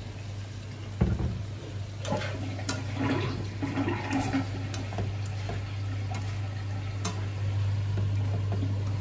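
Vegetables sizzling in a nonstick frying pan as they are stir-fried, with scrapes and light clicks of a spatula against the pan, over a steady low hum. A single sharp knock comes about a second in.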